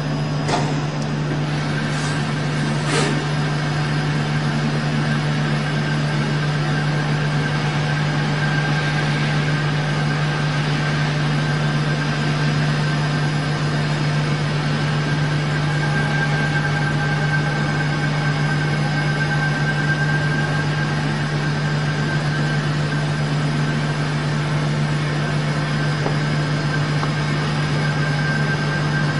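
Okuma MU-500 five-axis machining center turning a metal part, the workpiece spinning on its tilted rotary table against a fixed turning tool. A steady low hum with a thin high whine above it, and a few sharp clicks in the first three seconds.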